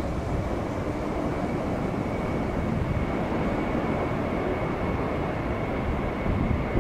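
Boeing 767 twin-engine jet at high thrust on its takeoff roll: a steady, deep rumble with a thin, steady whine over it.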